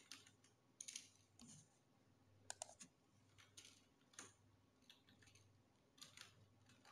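Faint, irregular computer keyboard keystrokes as a password is typed: single clicks and quick pairs spread out, with gaps of up to a second between them.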